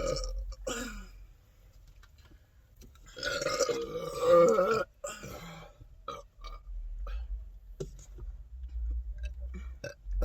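A woman burping from gulping carbonated soda: a short burp at the start, then a loud, drawn-out burp about three seconds in that lasts nearly two seconds.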